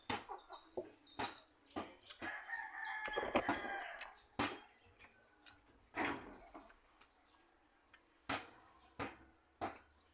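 A rooster crows once, a call of about two seconds starting roughly two seconds in, over a scatter of sharp clicks and taps.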